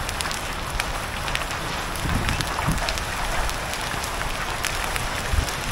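Hail and rain falling in a storm: a steady hiss of rain with many sharp ticks of hailstones striking all through.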